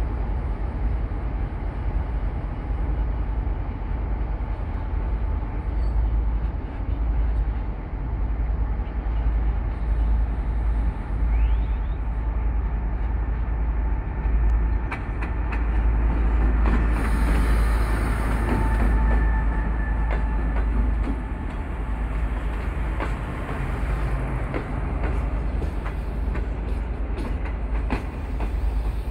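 CKD8G diesel-electric locomotive hauling a passenger train slowly past, a continuous deep rumble, with a brief hiss about two-thirds of the way in. As the coaches roll by, the wheels click over the rail joints.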